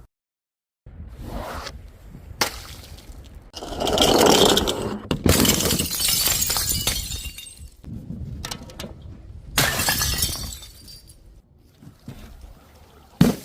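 Glass bottles shattering: a series of separate smashes and crunching crashes with shards clattering, the longest and loudest a few seconds in.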